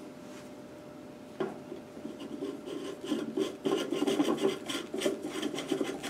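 Threaded end of a 1.5-inch ABS plastic pipe being screwed by hand into a sump pump's discharge, the threads rasping in a quick, uneven rub that starts about a second and a half in.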